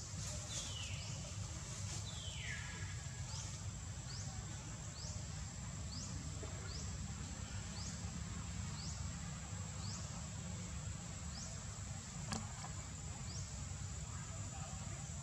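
Outdoor tree-canopy ambience: a steady high-pitched insect drone with a short rising chirp repeating about once a second. Two descending whistled calls come in the first three seconds, over a low rumble.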